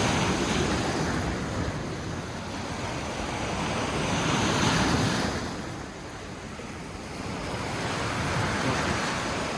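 Sea waves breaking and washing against the shore, surging in three swells, with wind buffeting the microphone.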